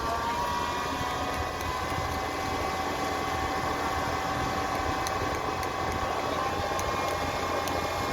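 Heavy truck engine running steadily, with a steady whine over a low rumble.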